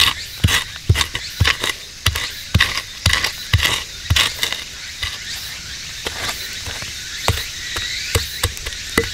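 Wooden stick jabbed repeatedly into dry, gravelly soil, scraping out a shallow pit: scratchy strikes about twice a second, thinning out after about five seconds.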